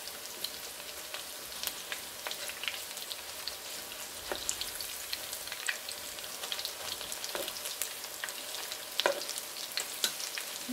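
Batter-coated spring greens deep-frying in hot oil: a steady sizzle with scattered crackles and a few louder pops.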